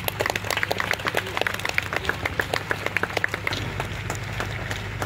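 Audience clapping, a patter of many irregular claps that thins out after about three and a half seconds, over a steady low hum.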